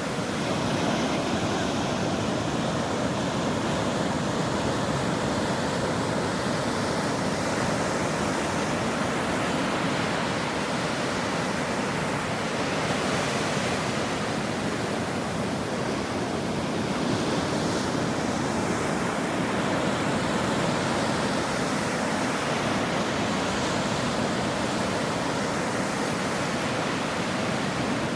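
Ocean surf washing onto a shore: a steady rush of breaking waves, swelling slightly every few seconds.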